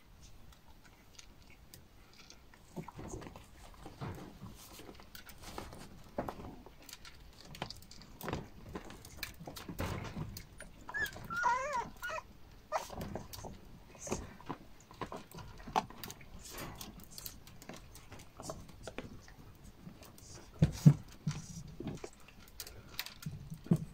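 Young Prague Ratter puppies eating dry kibble from bowls and scuffling: a run of small crunches and clicks, with a short, wavering, high-pitched puppy whine about eleven seconds in. A few sharper knocks come near the end as the pups wrestle.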